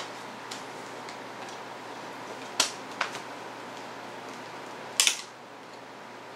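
A few sharp clicks of a CD case being handled as the disc is taken out: two light ones, then a louder double click about five seconds in. Under them is the steady hiss of an air conditioner and fan.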